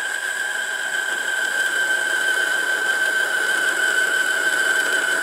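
MN-80 lathe boring out the internal bore of a metal collet chuck with a boring bar: steady running and cutting noise with a high, steady whine over it.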